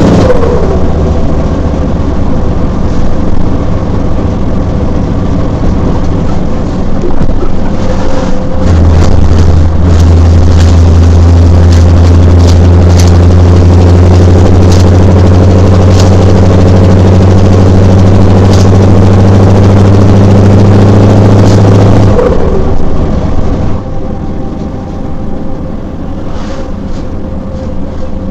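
Scania V8 diesel truck engine running steadily. It runs louder and heavier from about 9 seconds in, then drops back and settles quieter near the end.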